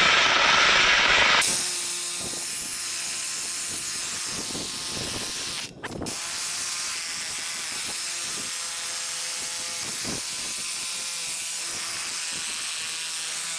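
Power saw with a carbide blade cutting through thick wrought-iron fence steel: a steady high whine and hiss, louder and harsher for the first second and a half, with a brief break about six seconds in.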